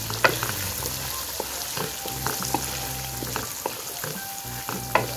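Marinated chicken chunks sizzling in hot oil in a wok while a spatula stirs and turns them, with repeated knocks and scrapes of the spatula against the pan; the sharpest knocks come about a quarter second in and near the end.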